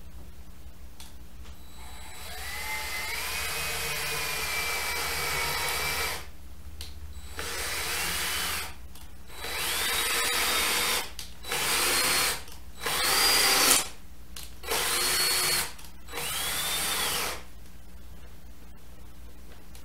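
Cordless drill/driver running into a plywood panel in seven separate runs: one long run of about four seconds, then six shorter ones. The pitch climbs as the motor spins up at the start of each run.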